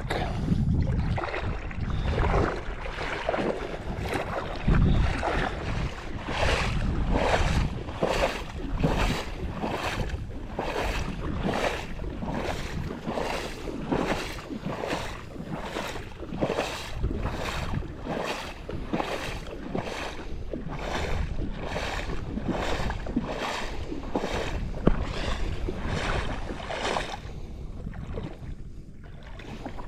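Legs wading through shallow marsh water: a steady rhythm of sloshing steps, about one and a half a second, settling in after the first few seconds and easing off near the end, with some wind on the microphone early on.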